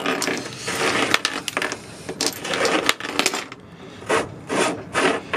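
Stainless-steel deck waste-fitting cap being unscrewed with a deck-plate key and then by hand: small metal clicks and scraping of the threads, turning into a string of short rasps near the end.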